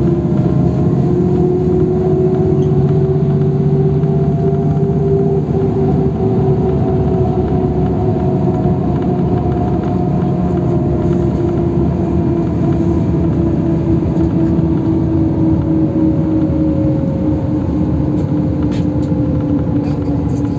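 Inside a LiAZ 529265 city bus driving at highway speed: steady engine and road rumble with a whine that rises slightly in the first few seconds, then slowly falls in pitch. A few light clicks near the end.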